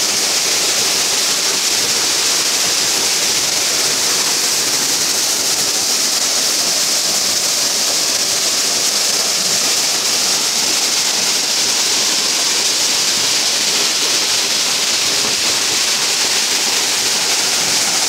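A waterfall and its rocky stream: water pouring and splashing in a steady, even hiss that holds the same level throughout.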